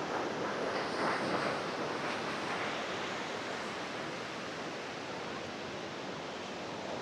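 Ocean surf washing in, a steady rush of noise that is a little stronger in the first couple of seconds and then evens out.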